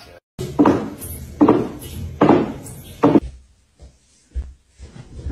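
Four sharp knocks, a little under a second apart, followed by a few fainter small knocks and clatters.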